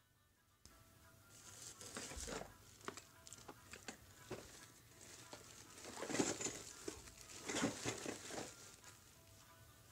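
Plastic courier mailer bag crinkling and rustling as it is handled and turned over, in irregular bursts with the loudest about six and seven and a half seconds in.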